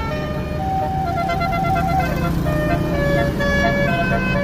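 Basuri telolet horn playing a tune of held notes that step up and down, some stuttering in quick pulses and one sliding down, over the low rumble of the vehicle's engine running.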